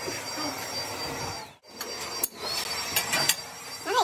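Metal lathe turning a cast iron truck brake drum, running with a steady noise and a thin high whine. The sound breaks off about one and a half seconds in, then comes scraping with several sharp metallic clicks as a hand-held steel rod works against the spinning drum.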